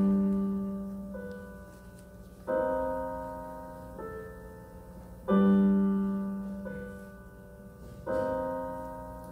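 Piano playing an instrumental break of slow chords, a new chord struck about every one and a half seconds and left to ring and fade.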